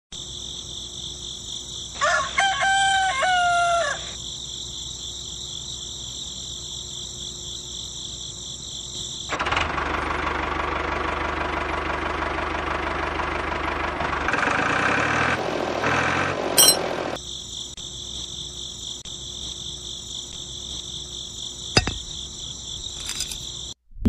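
A rooster crows once, about two seconds in, over a steady high-pitched insect chorus. A stretch of loud, even rushing noise with a low hum takes over from about nine to seventeen seconds, and the insect chorus returns after it.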